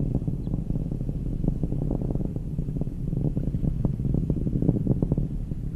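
Atlas V rocket's RD-180 first-stage engine: a deep, steady rumble with irregular crackling.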